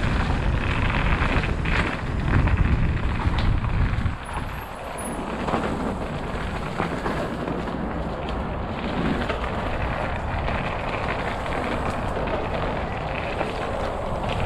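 Mountain bike riding fast down a leaf-covered dirt trail, heard from a rider-mounted camera: wind rushing over the microphone and tyres rolling over leaves and dirt, with small rattles. The heavy low rumble of the wind eases about four seconds in.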